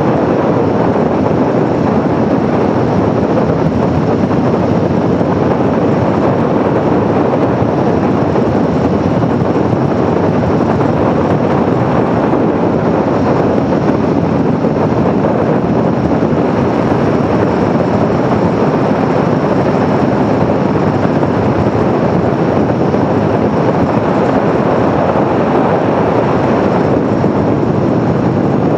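2021 Aprilia Tuono V4 1100 motorcycle under way, its V4 engine and the rush of riding making a loud, steady, even noise.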